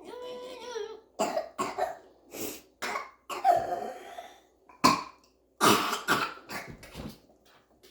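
A young girl in a coughing fit just after waking up: about a dozen coughs in uneven bursts, opening with a drawn-out pitched sound from her voice.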